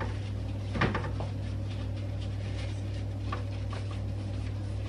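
Kitchen tidying clatter: a few short knocks and clicks of things being handled and set down on a counter, the loudest about a second in, over a steady low hum.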